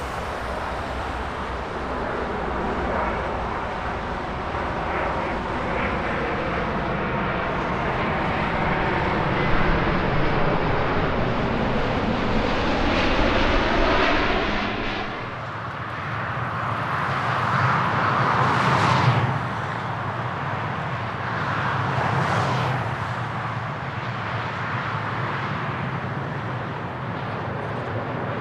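Airplane engines running loud and steady as an aircraft moves past, the tone sweeping slowly as it goes. The deep rumble drops away about halfway through, followed by a couple of swells in the engine noise.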